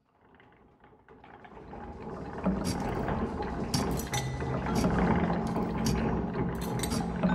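Sound design of clockwork machinery fading in: a rumbling mechanical hum with low steady tones and irregular clicks of turning gears, growing louder until about two and a half seconds in and then holding.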